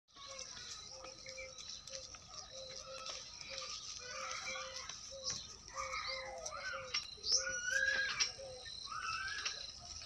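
Goats bleating, with several high rising calls in the second half. Underneath is a short note repeating about twice a second, and birds chirp.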